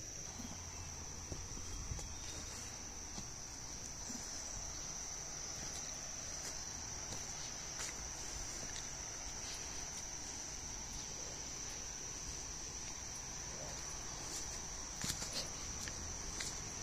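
Steady insect chorus: one unbroken high-pitched shrill tone, with a few brief clicks near the end.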